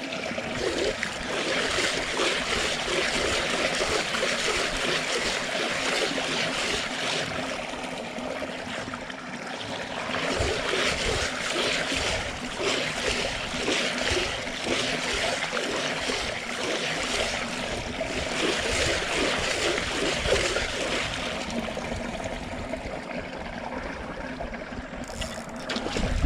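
Water splashing and churning as a hooked barramundi thrashes at the surface during the fight, going on and on and swelling and easing by turns.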